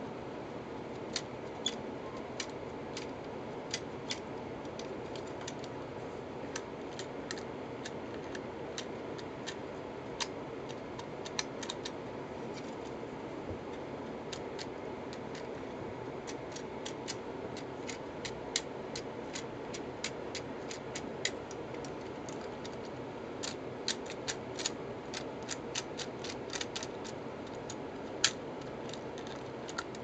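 Irregular light plastic clicks and clacks from a hand-built LEGO Technic joystick remote as its levers are pushed and released and the parts are handled, coming thicker near the end, over steady background noise.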